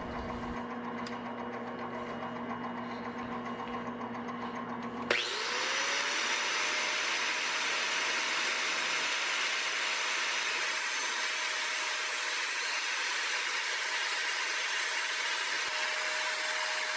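Metal lathe running with a steady hum, turning an engine valve. About five seconds in, an angle grinder with a sanding disc spins up with a rising whine, then runs steadily against the spinning valve with a loud sanding hiss as it takes the rough, pitted surface off the valve.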